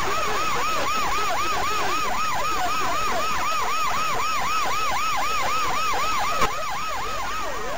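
Police car siren in a rapid yelp, rising and falling about four times a second. About six and a half seconds in there is a brief sharp click, and the siren changes to slower, overlapping glides.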